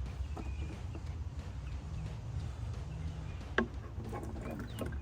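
Faint bird chirps over a steady low background hum, with a sharp click about three and a half seconds in.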